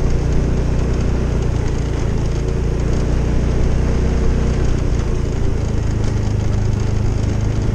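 Motorcycle engine running at a low, steady hum, its pitch shifting slightly about halfway through.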